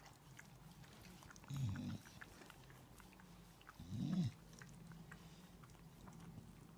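Two short, low grunting calls from a pet, about two and a half seconds apart, as a Shiba Inu licks a cat clean. Faint wet licking clicks run between them.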